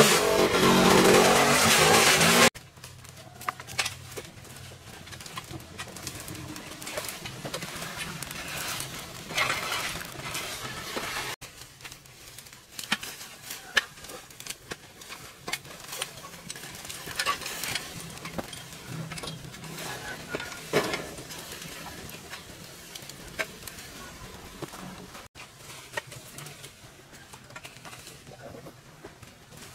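A small engine runs loudly for about the first two and a half seconds, then stops abruptly. After that come quieter, irregular clicks and knocks over a faint low hum.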